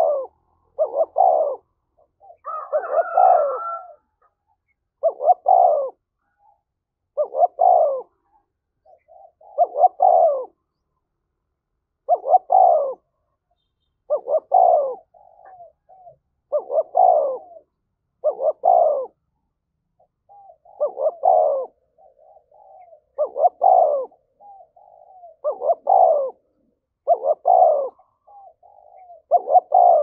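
Caged spotted dove cooing over and over, a loud phrase roughly every two seconds with softer short coos in between. A longer, rougher call comes about two to four seconds in. This is the fast, insistent coo that decoy doves give to provoke rival doves to answer and fight.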